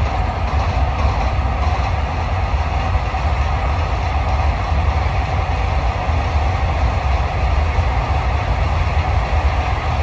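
Freight train's wagons rolling past over a bridge: a steady, loud rumble of wheels on rails.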